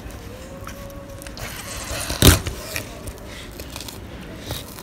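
Filleting knife slicing along a raw fish's backbone, with faint scraping of the blade against bone. One sharp knock about two seconds in.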